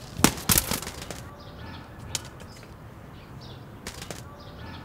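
Sharp clicks and rustles of a thorny bramble stem being handled in the fingers: a quick cluster a quarter second in, then single clicks near two and four seconds.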